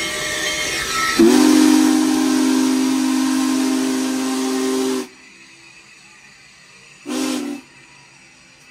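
Union Pacific Big Boy No. 4014 steam locomotive's whistle sounding a chord of several tones with a loud hiss of steam: one long blast of about four seconds starting about a second in, which cuts off sharply, then a short blast about two seconds later.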